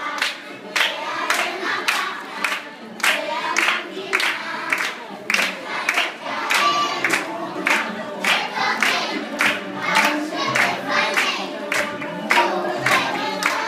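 A group of children singing a song together to a steady beat of sharp strikes, about two a second.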